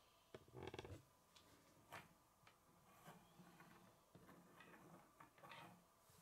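Near silence with faint handling noises: a plastic K'nex model being turned and slid on a wooden tabletop, giving a short soft scuff about a second in and a few light clicks and knocks after.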